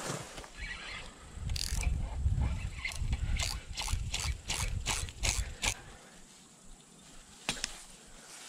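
Spinning reel clicking in an even run of about three clicks a second for a few seconds, then once more near the end, over low rumbling handling noise.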